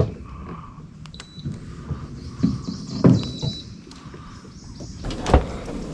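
Knocks and scraping as a small fishing boat is pushed through an overhanging tree limb, with a few separate knocks and a sharp one near the end.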